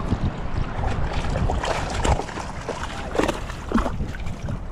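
Shallow surf water sloshing and splashing around a wader, with wind rumbling on the microphone.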